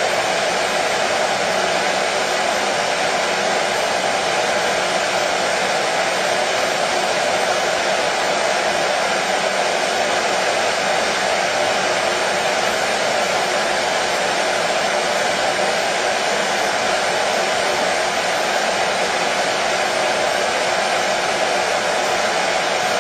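Hair dryer running steadily: an unbroken, even whoosh of blown air and motor that neither rises nor falls.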